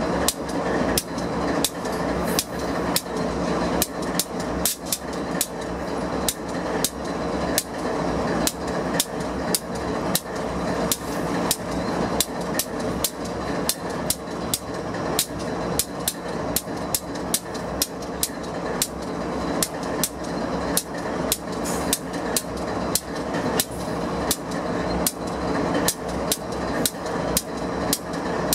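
Wheels of a passing intermodal freight train clicking sharply and evenly over rail joints, about two clicks a second, over the steady hum of an idling diesel locomotive.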